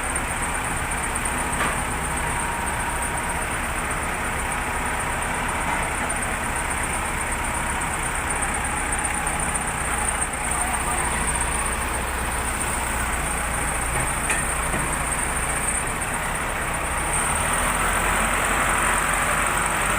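Case 580 Super L backhoe's diesel engine running steadily, getting a little louder about three-quarters of the way through.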